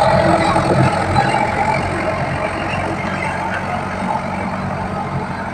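Engine of a log-hauling machine running steadily with a low, even hum, a little louder in the first second or two.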